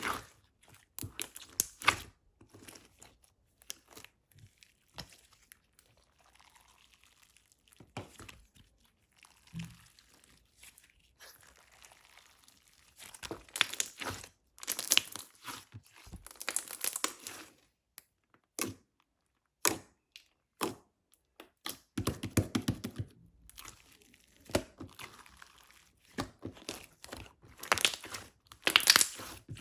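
Frosting-texture slime being handled: bursts of crackly, sticky clicking and popping as it is pressed, stretched and folded, with quieter pauses between, busiest around the middle and near the end.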